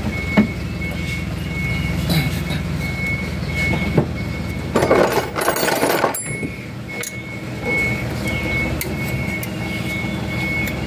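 An engine running steadily at a low hum, with light metallic clinks of tools and a high beep repeating about twice a second. About five seconds in, a rush of noise lasts roughly a second.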